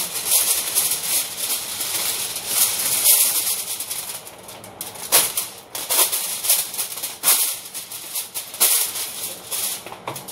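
Aluminium foil crinkling and crackling as a sheet is handled and pulled from its box, with many sharp crackles.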